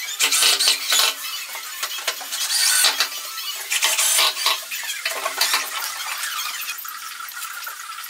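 Cordless drill running in about four short bursts against OSB board, with knocks and scraping between them; quieter from about six seconds in.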